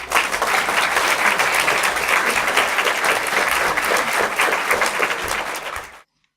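Audience applauding, a dense steady clapping that cuts off suddenly about six seconds in.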